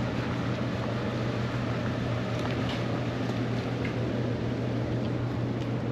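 Steady low machine hum under an even rushing noise, with a few faint ticks.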